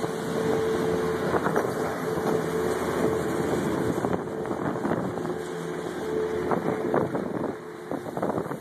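Skis sliding and scraping over snow, with wind on the microphone and a steady mechanical hum that stops near the end.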